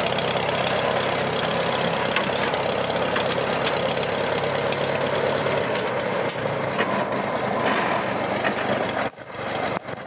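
Farmall tractor engine running steadily. The sound drops out for a moment about nine seconds in.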